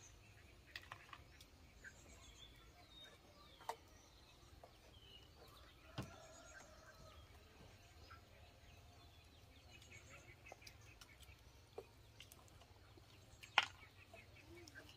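Faint outdoor ambience with scattered bird chirps and a few sharp knocks, the loudest near the end.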